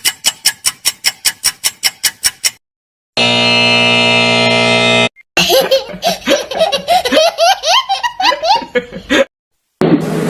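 A string of cartoon sound effects: a fast ticking of about six clicks a second for roughly two and a half seconds, then a steady buzzer tone for about two seconds, then a squeaky cartoon laugh of quick rising syllables. Near the end a short noisy burst begins.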